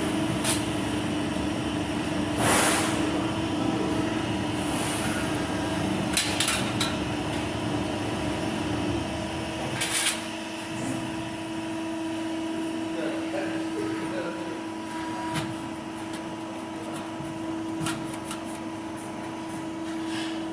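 Sheet-metal press brake running with a steady hum, with several sharp metallic clanks as it works, the loudest about two and a half and ten seconds in.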